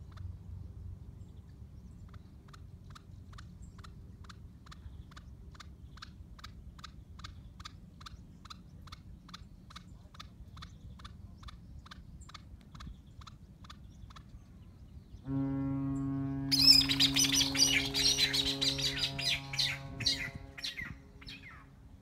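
Barbary partridge calling, a long steady series of short, harsh notes about two a second. About two-thirds of the way through, a loud steady low hum cuts in, and a louder jumble of high-pitched sounds follows until near the end.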